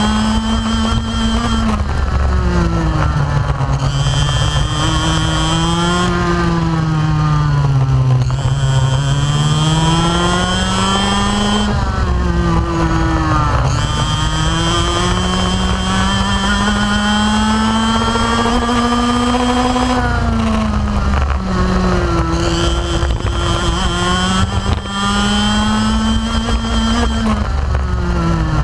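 125cc two-stroke racing kart engine heard from the driver's seat at race pace, its pitch climbing on the straights and falling as the driver backs off for the corners, several times over.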